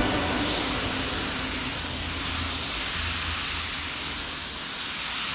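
Paint being sprayed: a steady hiss that cuts off sharply near the end.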